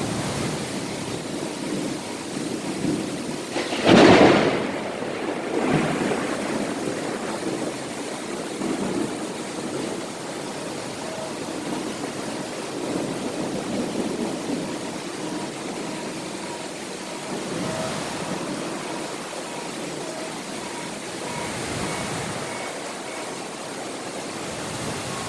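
Heavy thunderstorm rain falling steadily, with a sudden loud thunderclap about four seconds in and a weaker one near six seconds.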